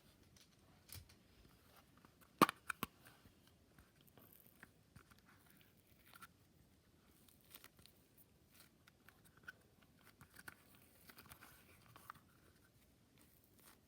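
Faint, scattered clicks, crinkles and rustles of small objects being handled, with one sharp click about two and a half seconds in.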